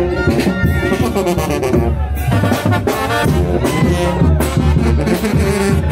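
Live brass band playing a lively festive tune, with brass carrying the melody over a steady drum beat.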